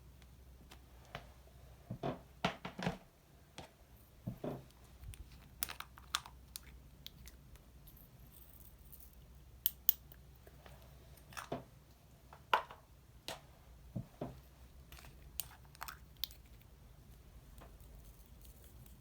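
Slime being kneaded and mixed by hand: irregular sticky squishes and sharp little clicks and pops.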